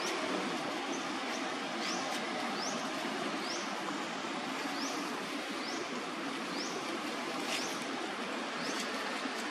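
Steady outdoor background hiss with a short, high rising chirp repeated about once a second.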